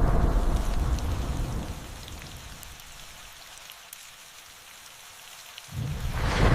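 Steady rain with scattered drips pattering, while a roll of thunder dies away over the first two seconds; near the end a new thunderclap breaks in suddenly and rumbles on.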